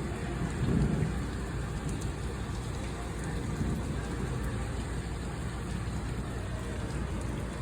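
Steady rain, with the low rumble of thunder dying away in the first second or so.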